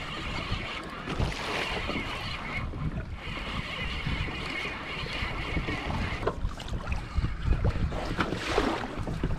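Wind buffeting the microphone and choppy sea water splashing against a plastic fishing kayak's hull, a steady noisy wash with a faint high whine coming and going.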